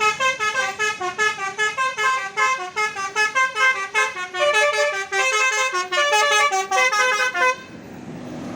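A bus's Basuri telolet horn, an electric musical horn, playing a fast tune of short stepped notes that stops about seven and a half seconds in. Steady traffic noise remains after it.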